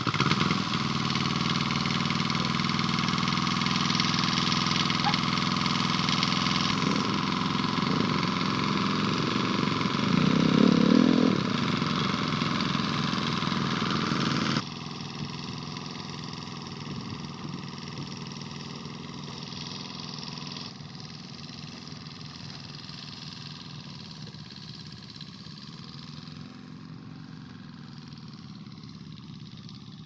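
Walking tractor's engine catching right at the start, then running steadily, with a brief rise in revs about ten seconds in. Midway through it suddenly becomes quieter and more distant, still running as the tractor is walked along a track.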